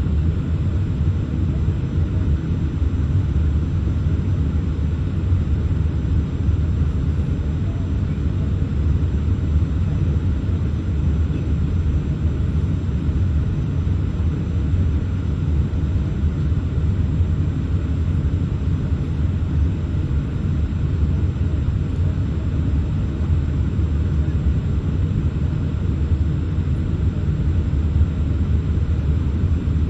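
Steady low rumble inside a Boeing 787-8 cabin during the taxi to the runway: the engines at taxi power with the cabin air system, heard without change throughout.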